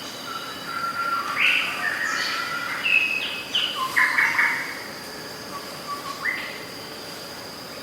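Outdoor nature ambience: a flurry of bird calls and chirps for about four seconds, some rising quickly and some held briefly, over a steady high insect drone.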